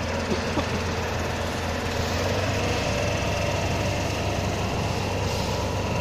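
Fire engine running steadily, its pump feeding a hose stream onto the fire. There is a constant engine hum under a broad rushing noise.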